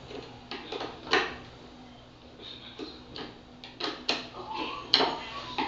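Plastic fan parts being handled and knocked together: a scatter of light clicks and knocks, the loudest about a second in and again near the end.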